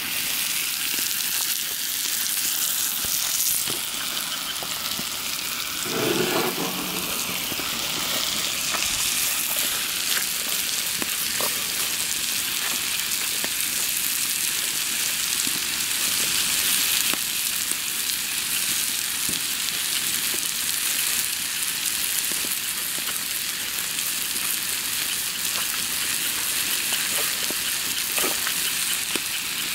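A pot of salted, vinegared water at the boil with yabbies cooking in it, making a steady hiss and bubbling.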